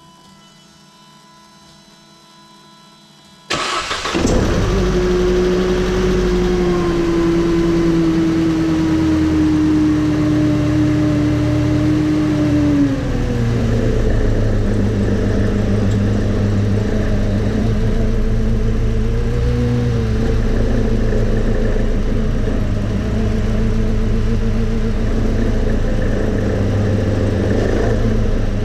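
Mercedes SLK 200 Kompressor (R171) supercharged four-cylinder engine starting about three and a half seconds in, then idling steadily. A strong steady tone rides over the engine note, sinking slowly, then drops about nine seconds after the start along with the engine note. This is the car's grinding-noise complaint.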